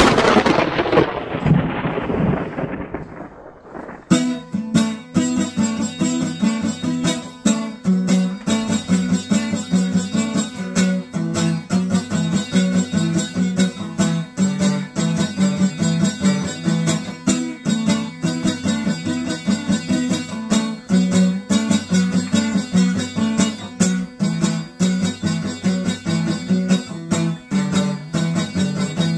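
A thunderclap rumbling and fading away over the first four seconds, then music led by plucked strings over a steady beat.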